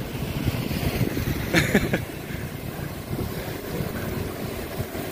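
Wind buffeting the microphone with road and tyre rumble, heard while riding a bicycle along a city road. A short shout comes about a second and a half in.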